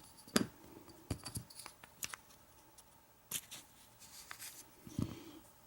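Scattered light clicks and taps of small metal lock parts being handled as a plug follower is used to slide the plug out of a lock cylinder for rekeying.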